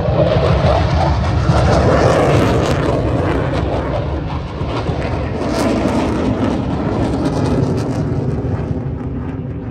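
Fighter jet flying past overhead: a loud, steady rush of jet engine noise with a deep low rumble, easing off a little over the last few seconds.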